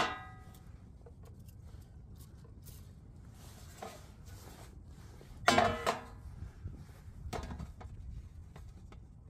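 Black steel pan on a wooden board clanking and ringing as it is handled and raw sausage is laid into it: one loud ringing clank about halfway through and a lighter clatter shortly after, with soft handling noises between.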